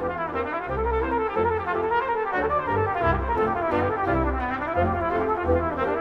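Brass ensemble music, trumpets and trombones playing a moving passage over a low bass part in separate notes.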